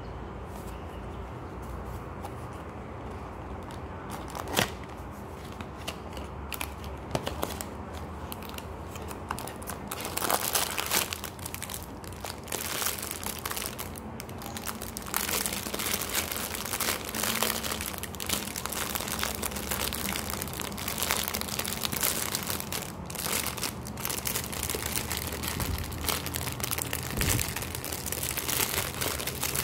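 Clear plastic bag of pyramid tea bags crinkling continuously as it is handled, starting about ten seconds in. Before that, light handling noise with a few sharp clicks from a cardboard tea box being turned over.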